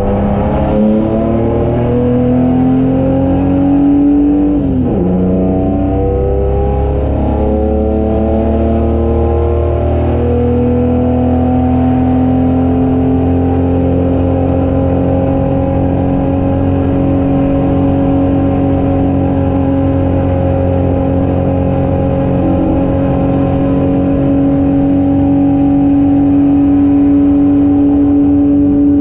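Holden HQ race car's straight-six engine at full throttle, heard onboard: the revs climb, drop with an upshift about five seconds in, climb again, and from around ten seconds on hold high and nearly steady, rising slowly, as the car runs flat out down a long straight.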